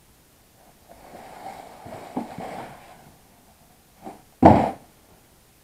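Cardboard box scraping and rustling as it is pulled across a wooden tabletop, then one loud thump about four and a half seconds in as the emptied box is set down.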